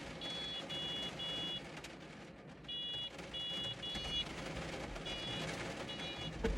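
Small electronic horn beeping in short high-pitched bursts, pressed repeatedly: three beeps, then three more, then two.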